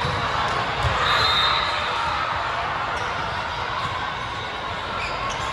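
Volleyball thuds on the court against a steady murmur of voices in a gym, with a few low thumps.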